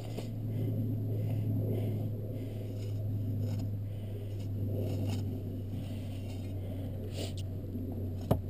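Snow shovel scraping and digging packed snow around a stuck car's wheel in irregular strokes, over a steady low hum, with one sharp knock near the end.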